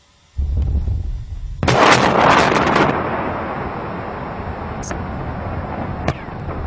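A large explosion: a low rumble, then a loud blast about a second and a half in that rolls on and slowly dies away, cut off abruptly at the end.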